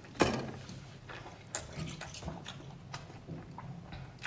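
A person chewing a very large mouthful of seafood, with wet mouth clicks and smacks scattered through; a loud sudden sound comes about a quarter second in.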